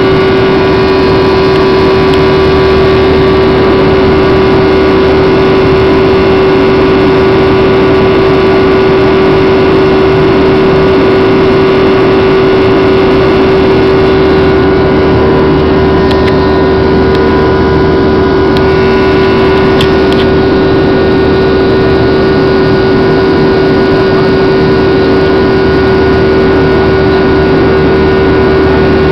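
Airliner cabin noise during the climb after takeoff: the engines give a loud, steady drone with a strong constant hum running through it.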